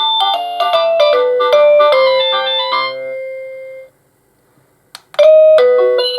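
Avantek D-3B wireless doorbell receiver playing one of its electronic chime tunes, a quick run of clean notes that ends on a long held note about four seconds in. After a second of silence and a click, the next tune starts.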